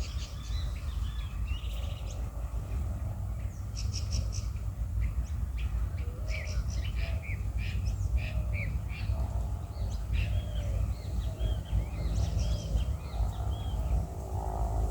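Small birds chirping and calling in quick, varied phrases, over a steady low rumble.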